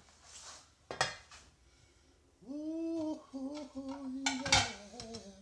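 Metal utensils clinking against cookware: a sharp clink about a second in and a few louder clinks near the end. From about halfway through someone hums a few held notes over it.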